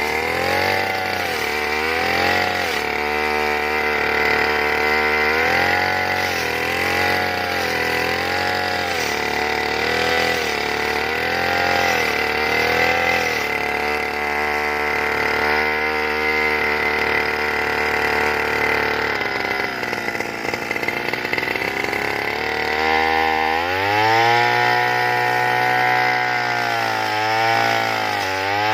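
Brush cutter (grass-cutting machine) engine running as it cuts cogon grass, its pitch rising and falling every second or two. About 23 seconds in it revs up and holds a higher, steady pitch.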